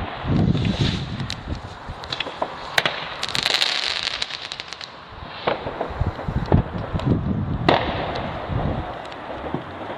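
Fireworks going off: repeated bangs and sharp cracks, with a burst of rapid crackling about three to four seconds in.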